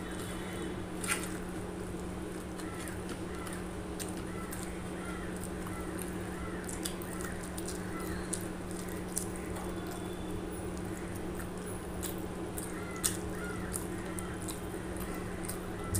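Eating by hand: fingers mixing rice and curry on a steel plate and chewing, with scattered small clicks over a steady low hum. Faint repeated high chirps come in two short runs.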